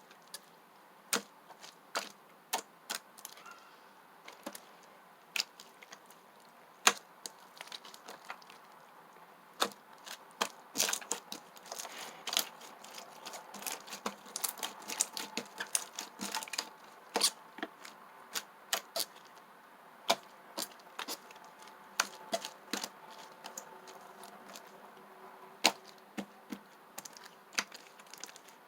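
Slime worked by hand, giving irregular sharp clicks and pops of trapped air, thickest through the middle.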